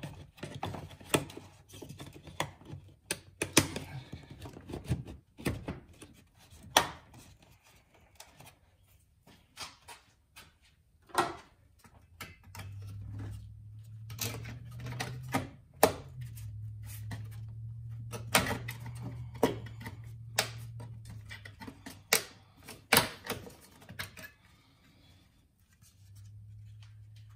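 Plastic air filter housing clips and cover pieces clicking and knocking as they are fitted and snapped shut by hand, in irregular sharp clicks. A low steady hum runs underneath through the middle and again near the end.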